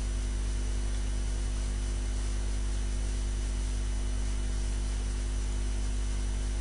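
Steady electrical mains hum with an even layer of hiss in the recording, unchanging throughout.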